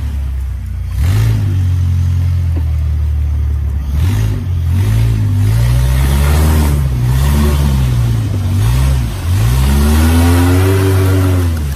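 Long-tail boat's engine running loud, its pitch repeatedly dipping and climbing back as the throttle is eased and opened, with its deepest dip about nine seconds in.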